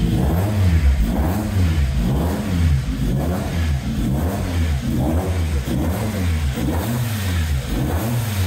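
Freshly fitted Mazda MX-5 four-cylinder race engine running just after its first start, blipped on the throttle over and over. The pitch rises and falls with each blip, a little more than once a second. It is being kept alive on the throttle because it will not yet hold an idle on its own.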